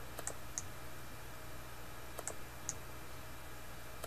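Computer mouse button clicked twice, about two seconds apart; each click is a press and a release a fraction of a second apart, over a low steady hum.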